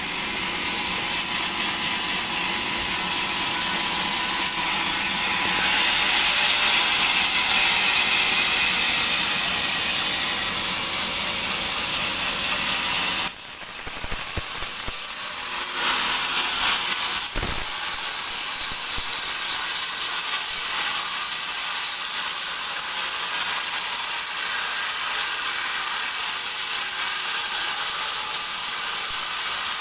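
Sawmill band saw cutting through a teak log: a steady, dense high-pitched sawing noise, with a brief change in the sound about 13 seconds in.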